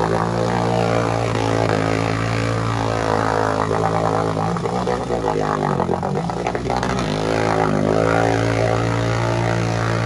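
Three-wheeler ATV's engine held at high revs while stuck in a deep mud pit; about halfway through, the revs drop and then climb back.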